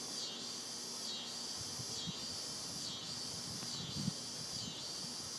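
Insects chirring in the trees: a steady high-pitched buzz that swells and dips in a regular rhythm a little faster than once a second.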